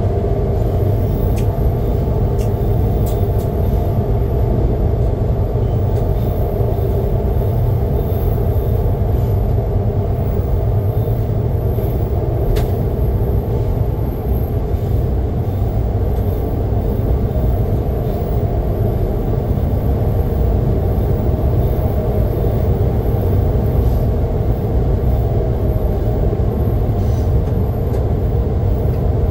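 Passenger train running along the track, a steady loud rumble of the train and its wheels on the rails, with a few faint ticks.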